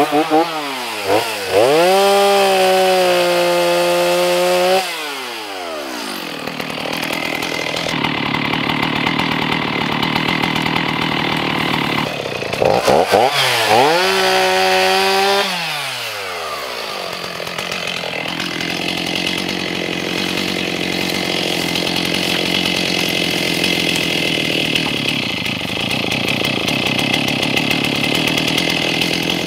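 Chainsaw cutting juniper trees. It revs up to full speed twice, each time holding for a few seconds and then dropping sharply in pitch, with steadier, rougher running between.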